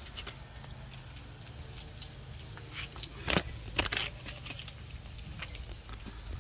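Dried salted fish (tuyo) frying in oil in a skillet, a faint crackling sizzle over a steady low rumble, with a few sharp clicks a little past three and near four seconds in.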